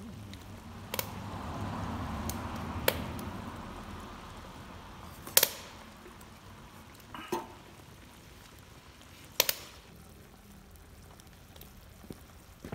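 Offal stew bubbling and sizzling in a frying pan over a rocket stove's fierce fire, hot enough to boil the liquid away fast. The sizzle swells a second or so in, then settles, with a handful of sharp clicks through it.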